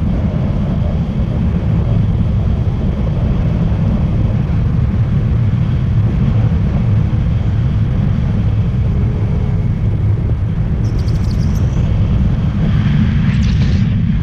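Wind rushing over the action camera's microphone during paraglider flight: a loud, steady, low rumble.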